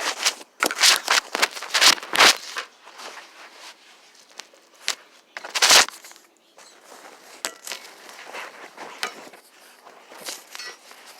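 Rustling and knocking handling noise: a run of loud rustles and bumps in the first two seconds, one more about six seconds in, and softer clicks and rustle between and after.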